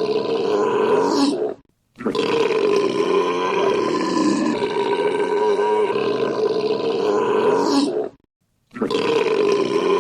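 A loud, very long man's belch, looped: one ends about one and a half seconds in, a full belch of about six seconds follows after a short silence, and the next starts again near the end.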